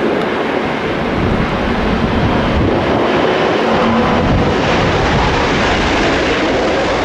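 Airbus A380 jet engines running loud and steady during a landing, heard as an even rushing noise with a faint low hum underneath.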